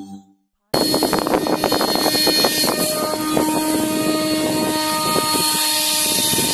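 Radio-controlled model fighter jet's motor running with a steady whine as it flies low overhead, with wind buffeting the microphone. It cuts in abruptly less than a second in.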